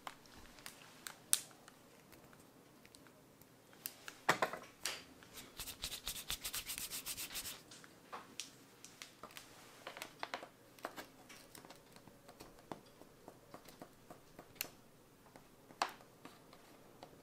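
Hands rolling a lump of modelling clay into a snake on a glass plate: soft rubbing of palm and clay against the glass, with scattered light clicks and taps and a quick run of small ticks a few seconds in.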